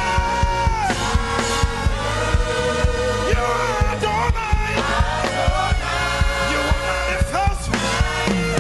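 Live gospel worship music: held keyboard chords over a steady drum beat, with a voice singing now and then.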